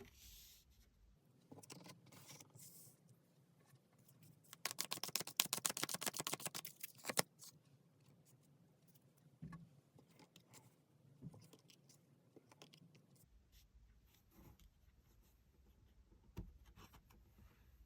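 Tarot cards being handled: a rapid run of card clicks lasting about three seconds near the middle, like a deck being riffled or flicked through, among scattered soft scrapes and taps of cards sliding and being set down.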